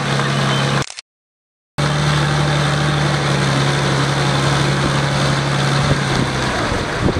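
Massey Ferguson 1100 tractor's engine running steadily under load as it drags a tractor-pulling sled. The sound drops out to silence for under a second about a second in, and the steady engine note ends shortly before the end.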